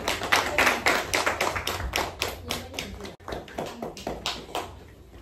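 A small group of children clapping, with many uneven claps that thin out and stop shortly before the end.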